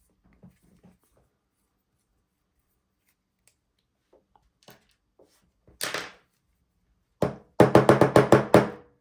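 Sharp knocks of a lock cylinder being tapped against a hard surface to shake out its springs and pins, which are sticky with spray lubricant. A few faint clicks come first, then a single knock, and near the end a quick run of about eight knocks in a row.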